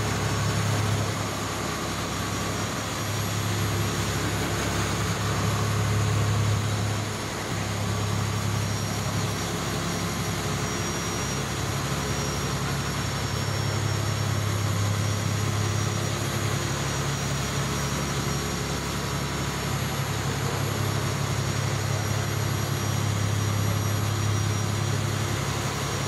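A vessel's engine droning steadily under the rushing hiss of foaming water churned up alongside the moving hull.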